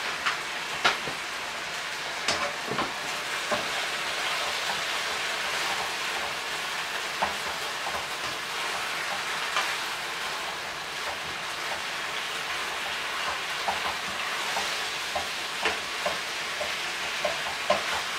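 Chicken and vegetable stir-fry sizzling in a frying pan, with a utensil stirring it and now and then clicking against the pan.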